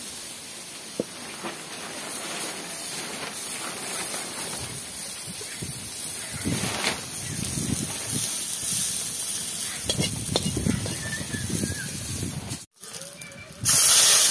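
A metal spatula stirs and scrapes prawns in an iron kadhai over faint frying, with irregular low knocks. Near the end, after a brief break, a loud hissing sizzle starts suddenly as liquid is poured into the hot wok and steam billows up.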